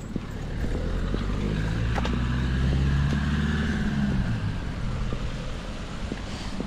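A motor vehicle drives past: its engine grows louder to a peak about three seconds in, then its pitch drops slightly and it fades away. Short knocks of footsteps sound over it.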